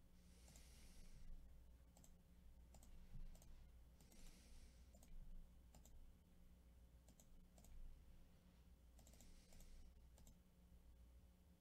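Near silence over a low steady hum, with scattered faint computer mouse clicks. Three soft hisses, each under a second long, come near the start, about four seconds in and about nine seconds in.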